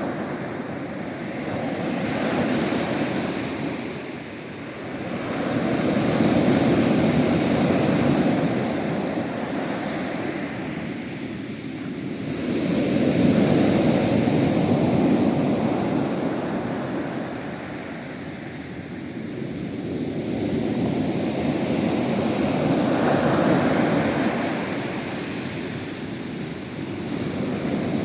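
Sea waves breaking on the shore under a westerly swell. The surf swells up and fades away about every eight to ten seconds.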